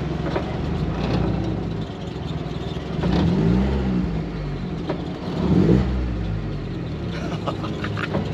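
Morgan Super 3's small Ford three-cylinder engine running, revved twice: pitch and level climb and fall back about three seconds in and again around five and a half seconds in.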